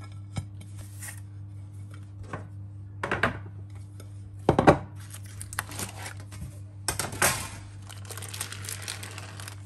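Baking paper peeled off the bottom of a freshly baked sponge cake, a crinkling, tearing rustle through the last few seconds. Before it come several knocks of a china plate and the metal cake tin as the cake is turned out, the loudest about four and a half seconds in, over a steady low hum.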